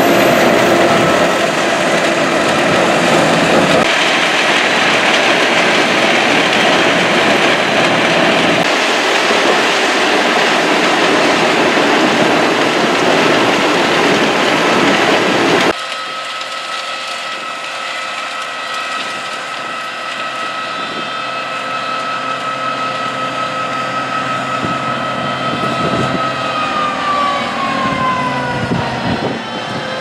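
Albach Diamant 2000 self-propelled wood chipper running loud and dense. It then turns quieter, with a steady high whine that falls in pitch near the end.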